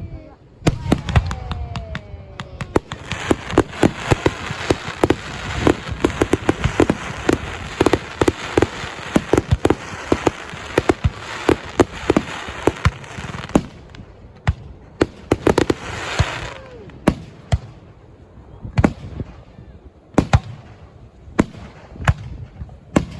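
Fireworks display: shells bursting in rapid bangs, building into a dense, crackling barrage for about ten seconds from about three seconds in, then thinning out to separate bangs.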